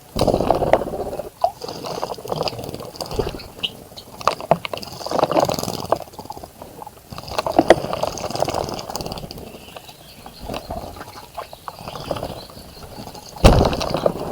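Birds splashing in a shallow bird bath: water sloshed and flicked in irregular bursts, with short spatters between them.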